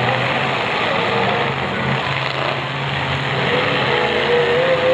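Several demolition derby cars' engines running together as a loud, steady drone, with pitch that wavers up and down as they rev, more strongly near the end.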